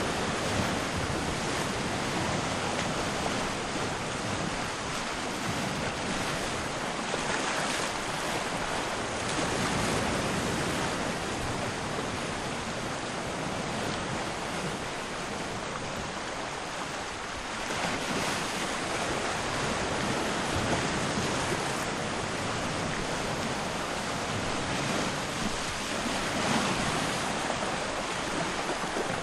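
Sea waves washing in and drawing back at low tide, a steady hiss of water that swells and eases every several seconds.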